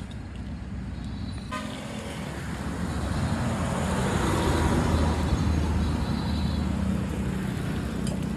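A motor vehicle passing close by on the road, its engine building to a peak about halfway and then easing off, with a short horn toot as it arrives about a second and a half in.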